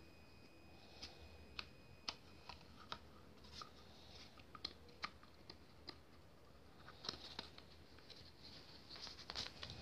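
Faint, scattered clicks and light plastic rustling as a small aerosol-can fire extinguisher is handled and pulled out of its plastic wall bracket. The clicks come thicker about seven seconds in and again near the end.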